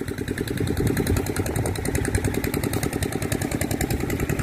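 Crawler excavator's diesel engine idling steadily, with a fast, even pulse.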